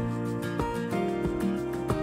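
Instrumental background music, with notes that change every half second or so.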